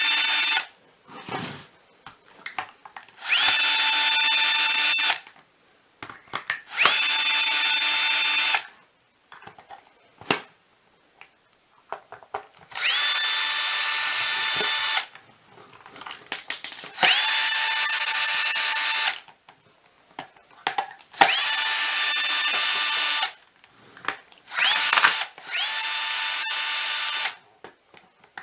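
Cordless Bosch Professional drill driver backing screws out of a plastic vacuum floor-head housing, run in about seven separate bursts of roughly two seconds. Each burst starts with a quick rising whine, then holds a steady pitch. Small clicks sound in the gaps between bursts.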